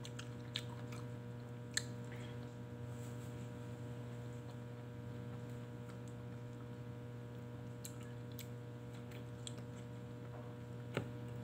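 Steady electrical mains hum, with a few soft clicks and smacks of someone chewing ripe papaya.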